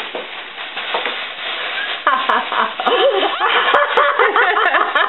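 Two-month-old baby laughing in short, rising and falling bursts from about two seconds in, over the steady crinkle of a plastic bag being rustled.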